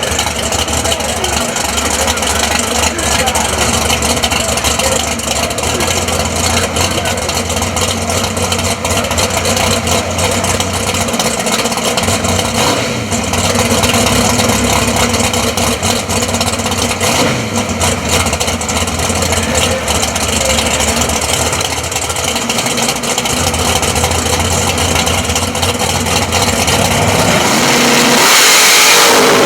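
Drag-race car engines running at the starting line, a steady loud idle under background voices. Near the end the engines rev up and climb in pitch as the cars launch down the strip.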